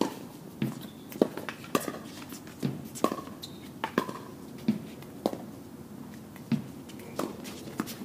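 Tennis rally: tennis balls being hit by racket strings and bouncing on the court, a sharp pop roughly every half second.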